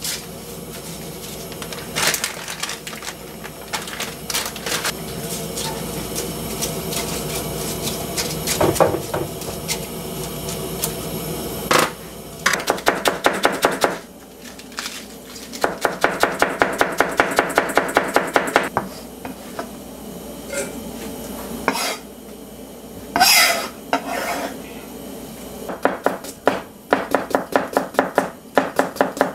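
Kitchen knife chopping vegetables on a plastic cutting board: after scattered light knocks and clatter, fast even runs of blade strikes in the middle as cabbage is finely shredded, then another quick run near the end as cucumber is sliced.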